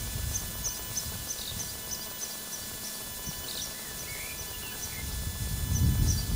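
Distant low rumble of a Peppercorn A1 Pacific steam locomotive and its train crossing a long bridge, swelling louder near the end. Small birds chirp over it in short high notes repeated about three times a second.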